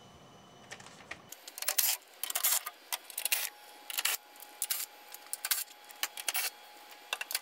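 Short, scattered bursts of light metallic clicking and rattling as the 8 mm screws holding the underbody rock shield are backed out and handled.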